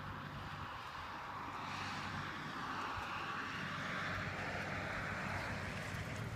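A distant engine drone with a broad hiss that swells over a few seconds and holds.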